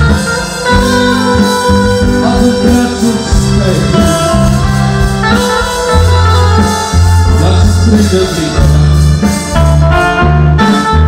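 Loud music with a heavy bass line and guitar.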